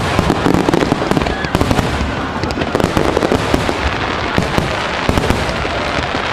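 A continuous starmine fireworks barrage: shells bursting in quick succession, with a dense, unbroken run of sharp pops and crackles.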